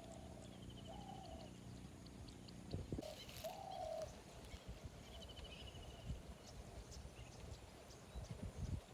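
Several birds calling: short mid-pitched calls, a rapid high trill that comes twice, and scattered high chirps, with a few low thumps about three seconds in and near the end.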